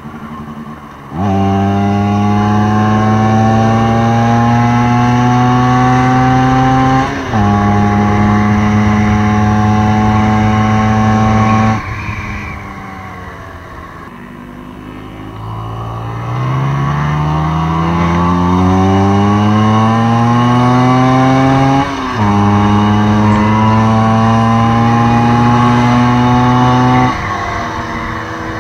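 Vespa PX largeframe scooter's two-stroke engine heard from the rider's seat, pulling up through the gears: its pitch climbs and drops sharply at each shift, about a second, seven and twelve seconds in. It then falls away with the throttle closed, climbs again under acceleration to another shift about 22 seconds in, and runs at a steady cruise before easing off near the end.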